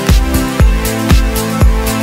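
Background music with a steady electronic dance beat, a kick drum about twice a second under held synth chords.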